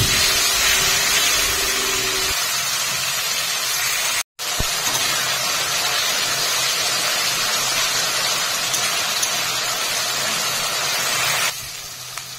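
Spice paste sizzling and spattering hard in hot oil in a wok as it is stirred, just after a splash of water went in. The hiss is steady and drops off sharply near the end.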